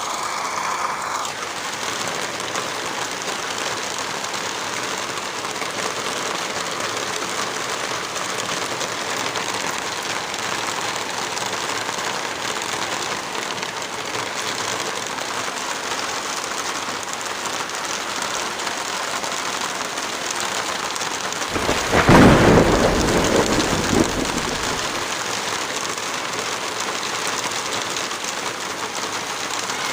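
Steady rain, with one low rumble of thunder about two-thirds of the way through that lasts some three seconds and is the loudest sound.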